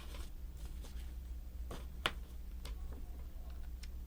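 Faint clicks and taps of small plastic model-kit parts being handled as a pin is fitted, with one sharper click about two seconds in, over a low steady hum.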